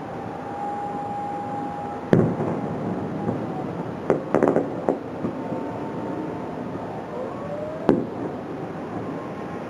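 Fireworks bursting over a steady background hiss: a sharp bang about two seconds in, a quick cluster of crackling pops around the middle, and another bang near the end that follows a short rising whistle.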